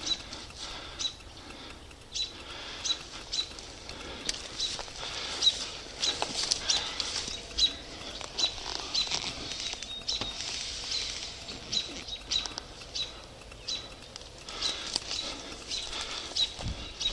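Footsteps of a player on foot across the field, roughly two steps a second, each with a short sharp click.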